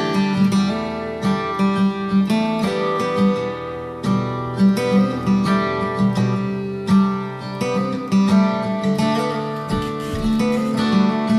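Acoustic guitar music, plucked and strummed notes playing continuously.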